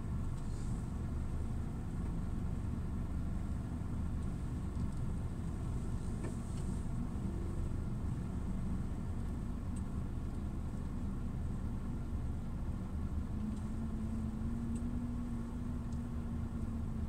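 Scania truck's diesel engine running at low speed, heard from inside the cab as a steady low rumble. About thirteen seconds in a steady hum joins it.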